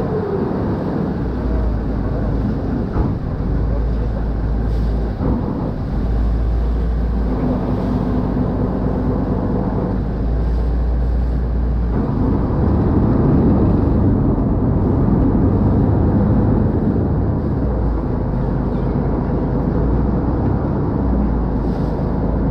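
Canal express boat's diesel engine running steadily, mixed with the rush of its churning wake against the hull. The engine note grows louder a little past halfway.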